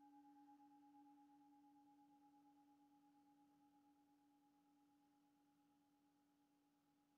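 Singing bowl ringing out after a strike: two steady tones, one low and one higher, with a gentle wavering pulse, slowly dying away and very quiet.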